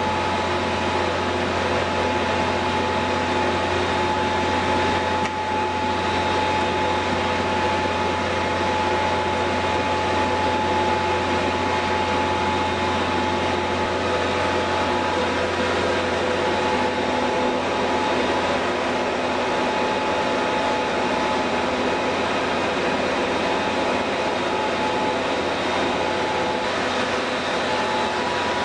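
Rendering plant machinery running steadily: a constant mechanical drone with a low hum and several steady whining tones.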